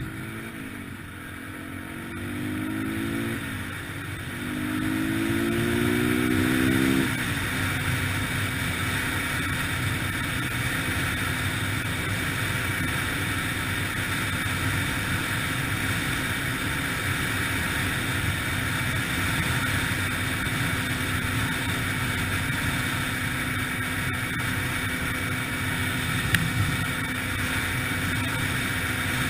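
Yamaha TTR-125LE dirt bike's single-cylinder four-stroke engine accelerating: its pitch climbs twice in the first seven seconds, dropping at each gear change. It then runs at a steady speed under a steady rush of noise.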